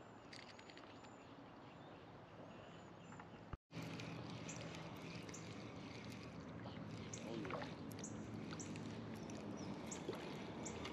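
Faint outdoor ambience: small high bird chirps scattered over a steady low hum. The sound drops out completely for an instant about a third of the way in.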